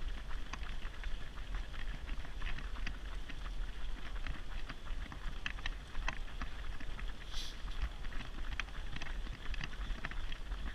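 Footsteps of a pack of runners on tarmac, an irregular patter of light slaps, over a steady low rumble of wind on the microphone.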